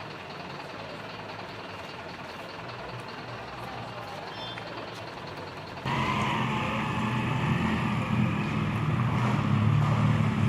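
Outdoor noise, then about six seconds in an abrupt change to a louder, steady heavy engine running, like a truck or similar large vehicle.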